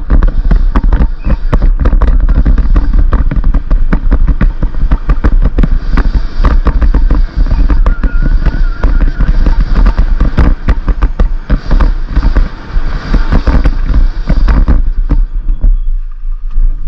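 Downhill mountain bike ridden fast over rough dirt and rocks, heard from a camera mounted on the bike or rider: a steady wind rush and low rumble on the microphone, with the bike rattling and knocking over the bumps in rapid, irregular cracks.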